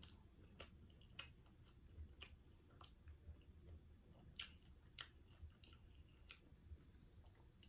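Faint close-up chewing of a syrupy pancake burger: soft, wet mouth clicks at an irregular pace, roughly one or two a second.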